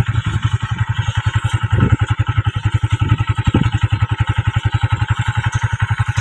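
A small engine running at a steady speed, a rapid, even putter of about a dozen beats a second.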